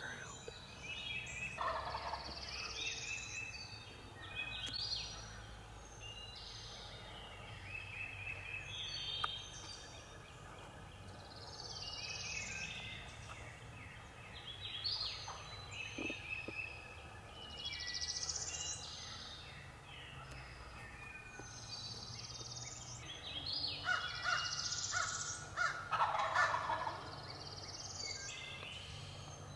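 Male wild turkey gobbling a couple of times, loudest around 25 seconds in, over a steady chorus of songbirds.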